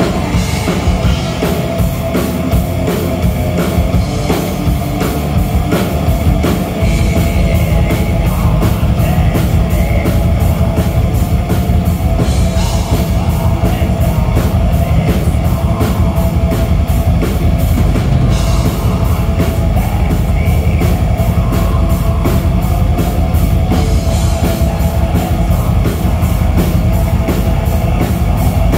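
Black metal band playing live: distorted electric guitars over fast, steady drumming, loud throughout.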